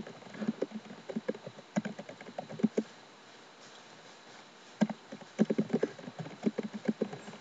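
Computer keyboard being typed on: quick runs of key clicks, with a pause of about two seconds in the middle before a fast run resumes.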